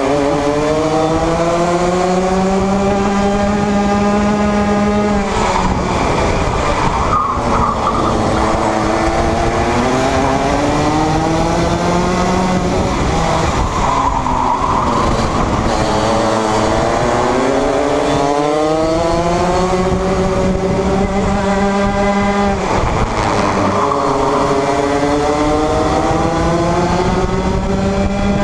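Junior Rotax Max 125 cc two-stroke kart engine at racing speed, heard onboard. Its pitch climbs steadily along each straight and drops away sharply as the driver lifts and brakes for a corner, several times over.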